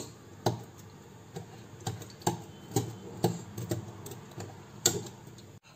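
Metal wire whisk stirring wood apple pulp into water in a bowl, its wires clicking against the bowl about twice a second.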